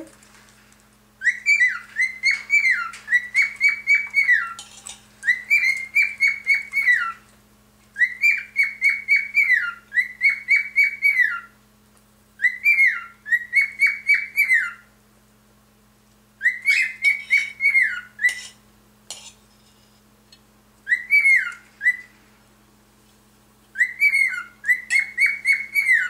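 Male cockatiel singing: runs of clear whistled notes, each sliding down in pitch, at about three or four notes a second. The song comes in repeated phrases of two to three seconds with short pauses between them.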